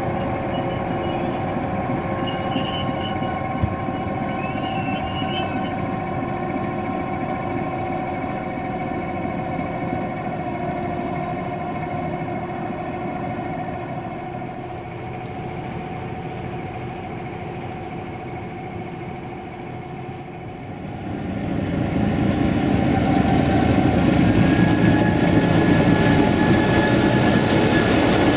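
LDH1250 diesel-hydraulic shunting locomotive running on the adjacent track, with a thin high metallic squeal in the first few seconds. About 21 seconds in the sound grows much louder as the locomotive comes alongside.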